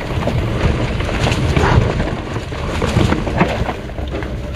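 Mountain bike descending a dirt trail: wind rumbling on the microphone over the noise of the tyres on the ground, with scattered short rattles from the bike over rough terrain.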